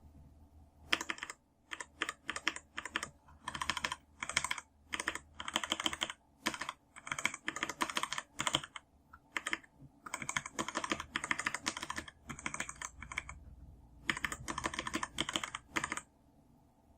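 Typing on a Razer BlackWidow keyboard with Razer Orange tactile mechanical switches: bursts of quick keystrokes with short pauses between them.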